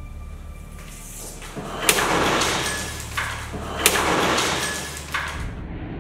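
Wooden guillotine's blade striking the block twice, about two seconds apart, each a sharp crack as it chops through a brittle object. Each crack sits in a longer rush of noise that rises and fades away.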